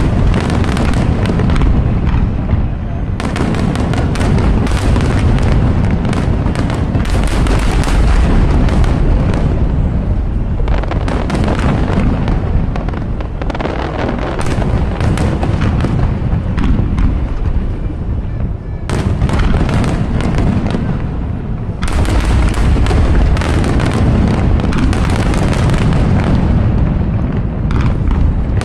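Fireworks show going off in a dense barrage: many shell bursts one after another, overlapping into a continuous booming, with a few short lulls.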